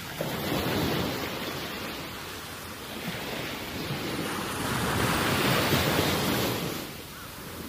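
Wind rushing over the microphone by open water, a steady noise that swells to its loudest around the middle and eases near the end.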